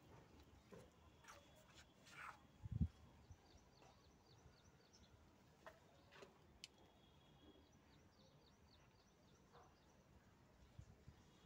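Near silence with faint, quick high chirping in two stretches, and a single short low thump about three seconds in.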